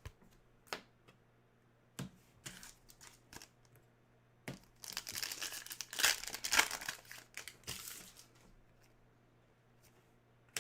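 Plastic trading-card pack wrapper being torn open and crinkled: a few light clicks and taps, then a dense crackle lasting about three seconds around the middle.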